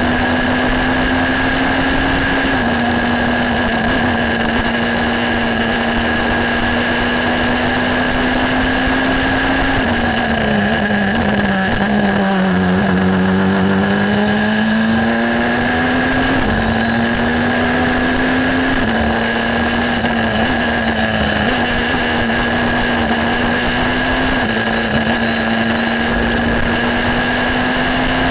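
Ligier JS53 EVO2 sports prototype's engine at racing speed, heard from the cockpit. It is held high with quick upshifts, drops in pitch as the car brakes and shifts down for a slow corner about ten to thirteen seconds in, then climbs back up through the gears.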